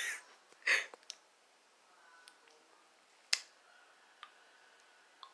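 A short breathy sound near the start, then a few faint, scattered clicks and taps from handling a hand-held phone.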